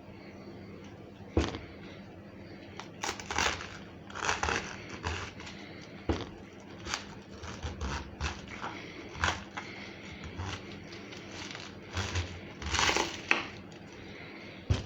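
Knife cutting through a head of cabbage on a cutting board: irregular crisp crunching cuts, a dozen or so.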